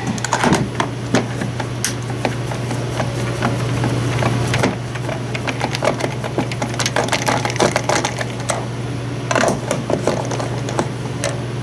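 Hand screwdriver turning a screw out of a battery chainsaw's plastic housing: irregular clicks and ticks of the bit and screw against the plastic, over a steady low hum.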